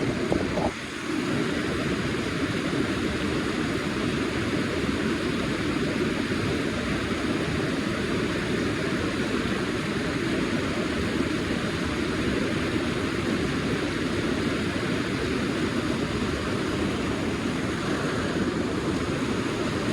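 Steady rushing of a fast-flowing river, an even noise with no let-up apart from a brief drop about a second in.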